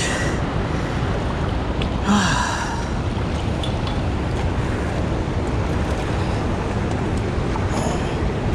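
Steady rush of fast, churning river water, with wind on the microphone. A short breathy gasp comes about two seconds in.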